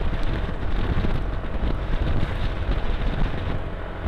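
Wind buffeting the microphone of a rider on a moving automatic scooter, a steady low rumble with the scooter's engine and road noise underneath.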